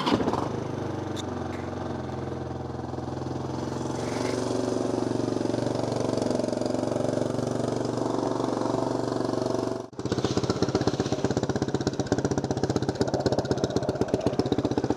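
A small motor scooter's engine on a cold start, catching right away and running steadily as it warms up. About ten seconds in the sound breaks off for a moment and comes back as a choppier, rapidly pulsing idle.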